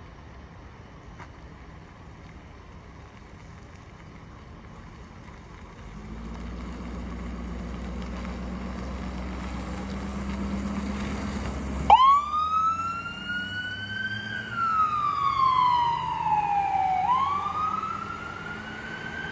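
Ambulance engine growing louder as it pulls through the intersection. About twelve seconds in, its siren starts abruptly in a wail: a slow rise in pitch, then a slow fall, each sweep about two and a half seconds, before it climbs again near the end.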